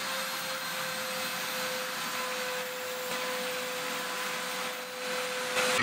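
Handheld rotary tool spinning a small abrasive drum against the steel toothed rack of an adjustable wrench jaw: a steady high motor whine with the hiss of grinding metal.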